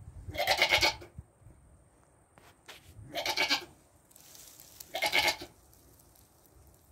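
Heavily pregnant Nigerian Dwarf doe bleating loudly three times during labor, each call about half a second long.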